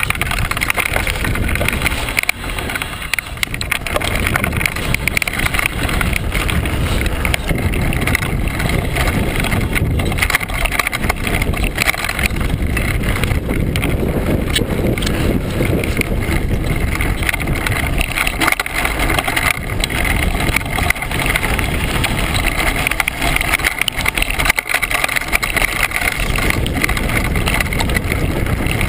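Downhill mountain bike rolling fast over a loose gravel trail, heard through a bike-mounted GoPro: steady wind rush and rumble on the microphone with constant crunching and rattling of tyres and bike over stones.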